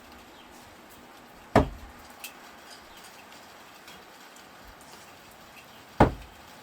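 Two sharp impacts about four and a half seconds apart: no-spin thrown screwdrivers hitting the target, each with a short ringing decay. A faint click follows the first hit about half a second later.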